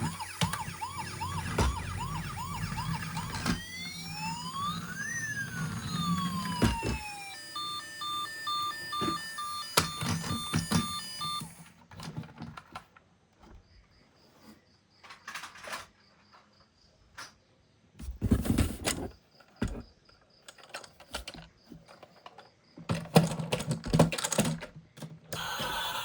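Electronic siren sounds from a battery-powered toy emergency vehicle: first a fast warbling wail, then rising and falling sweeps, then a run of steady beeps at several pitches. After about twelve seconds the siren stops, and scattered plastic clicks and knocks of the toys being handled follow.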